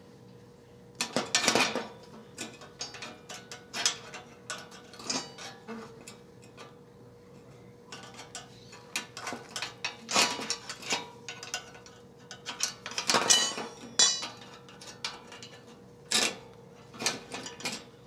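Bursts of metal clicking and clinking as a hand wrench backs a bolt out of a bracket on a steel angle-iron bed frame.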